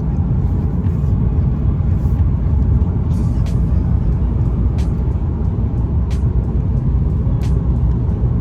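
2006 BMW 330xi's straight-six running on a test drive after a radiator replacement, a steady low engine and road rumble. A faint sharp tick comes about every second and a half.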